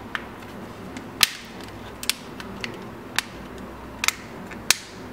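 Sharp plastic clicks, about eight of them, the loudest about a second in, as the white plastic back cover of a THL smartphone is pressed and snapped into place on the phone's body.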